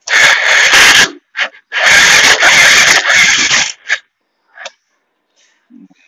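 Bajaj Pulsar 150's electric starter motor being run twice, a loud burst of about a second and then one of about two seconds. This is the harsh self-start noise that a damaged starter bush produces.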